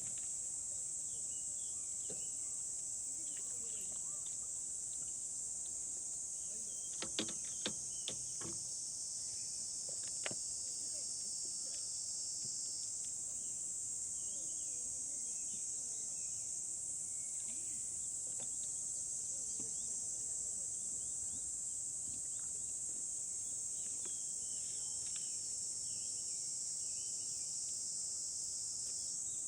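Steady high-pitched insect chorus droning without a break, with a few sharp clicks about seven to eight seconds in and once more about ten seconds in.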